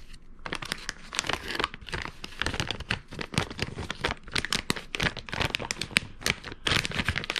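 Plastic fishing-lure packaging crinkling in the hands, a dense run of irregular crackles.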